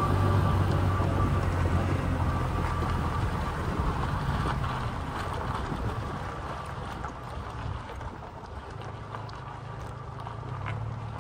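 Toyota Tacoma pickup rolling slowly down a dirt and gravel track: a low engine hum with tyre noise, small crackles from the gravel and some wind on the microphone. The engine hum is stronger at first and eases off about halfway through.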